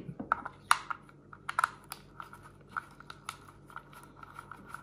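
Light, irregular clicks and ticks of a small Torx screwdriver backing screws out of a plastic sensor case, with the case being handled.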